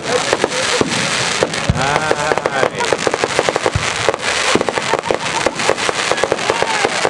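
Fireworks display: dense, rapid crackling and popping of bursting shells, many sharp reports in quick succession.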